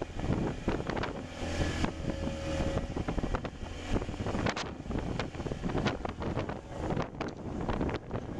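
Strong wind buffeting the microphone on a small open boat in choppy water, over a steady rush of water, with frequent sharp knocks and slaps scattered throughout.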